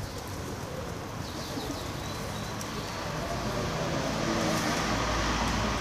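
Steady rumble of road traffic that grows louder over the last second or so, with a few faint bird chirps about a second in.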